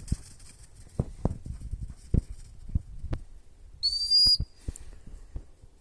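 A single short blast on a gundog training whistle, a handler's signal to a retriever: one high, clear tone with a slight rise at its start, about four seconds in. Scattered low thumps come before and after it.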